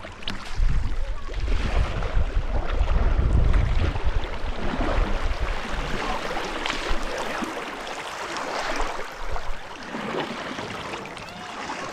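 River water rushing and splashing around a raft, with a heavy low rumble over the first four seconds.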